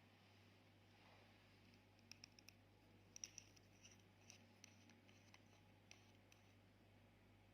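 Faint, sharp little clicks and snips from small hard objects being handled: four in quick succession about two seconds in, a cluster a second later, then a few scattered ones. Under them is a steady low hum.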